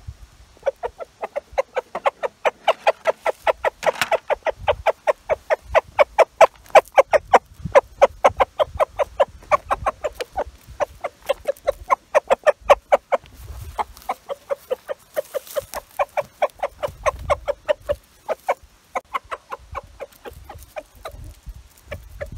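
Rooster making a long run of rapid, evenly spaced clucks, about five a second: the food call (tidbitting) that calls hens over to beetles and bugs he has found.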